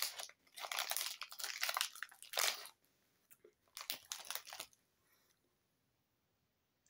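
Crinkling of a Fruit Gushers foil snack pouch being handled as a gummy is picked out, in several short rustling bursts over the first four and a half seconds.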